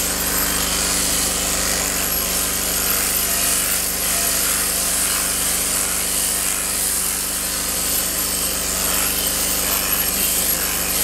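Sheep-shearing machine's handpiece running with a steady buzz as it cuts through a sheep's fleece.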